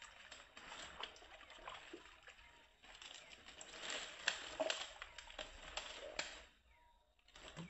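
Dry dead palm fronds crackling and rustling under a person's feet and hands, with some water sloshing as he steps about on the frond mat over shallow swamp water. It is busiest in the middle and dies to a lull near the end.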